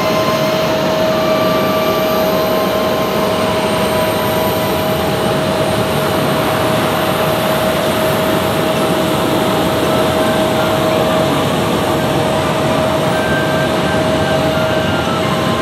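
Jet airliner engines running at taxi power: a steady rush with a constant high whine held throughout.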